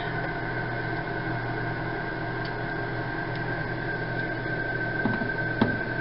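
Steady electrical hum with a constant high-pitched whine over it, and a few faint clicks near the end.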